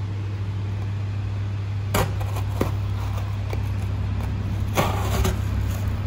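Opinel paring knife pushed down through box cardboard: a sharp crack about two seconds in, a few faint ticks, then a rough tearing stretch around five seconds, the card snagging and tearing rather than slicing cleanly. A steady low hum runs underneath.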